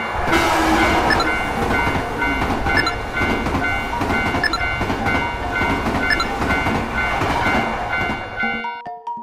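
Electric train passing over a level crossing: a loud rumble and rush of wheels on rails with regular clickety-clack, while the crossing's warning bell keeps ringing. The train noise cuts off suddenly near the end.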